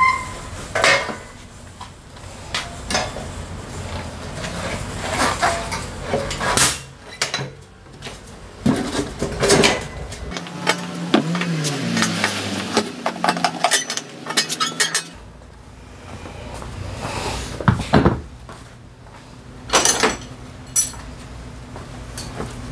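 Hand tools and a lever-operated manual tire bead breaker clanking and clinking on metal as a scooter tire is worked off its rim, a string of irregular sharp knocks and clinks.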